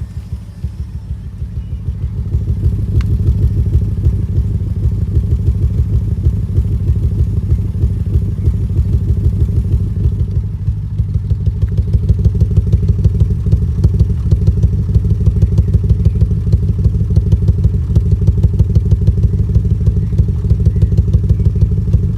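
2005 BMW 650i's 4.8-litre V8 idling unevenly with a regular pulsing beat, the sign of a misfire on cylinder 5. It gets louder about two seconds in, and the beat grows more pronounced about halfway through.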